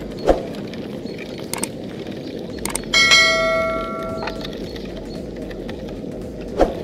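Hand-cranked metal meat grinder being turned, a steady grinding and churning with a sharp knock near the start and another near the end. About three seconds in, a bell-like metallic ring sounds suddenly and fades over a second or so.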